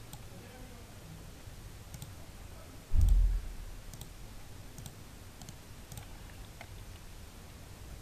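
Computer mouse clicking, a series of light, sharp clicks roughly once a second. One dull thump about three seconds in is the loudest sound.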